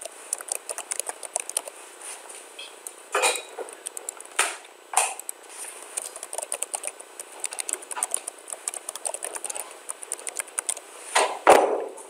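Typing on a computer keyboard: a fast, uneven run of keystroke clicks as text is entered into web form fields, with a few louder thumps, the loudest shortly before the end.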